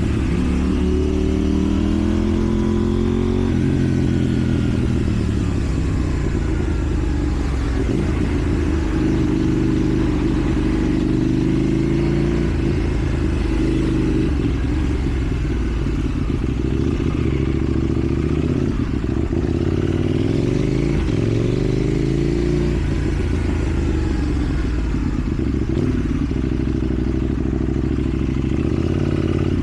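KTM 790 Duke's parallel-twin engine through a slip-on exhaust, revving up and easing off again and again as the bike rides, its pitch rising and falling through the gears.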